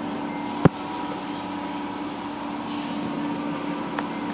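Automatic car wash machinery running with a steady hum while water sprays onto a vehicle, heard through glass. A single sharp knock comes about two-thirds of a second in, and a fainter tick near the end.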